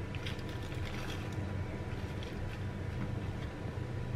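A steady low mechanical hum, with a few faint soft taps and rustles as food is handled on a plate.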